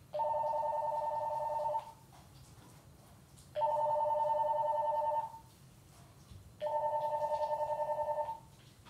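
Telephone ringing with an incoming call: three warbling two-note rings, each about a second and a half long, separated by pauses of about a second and a half.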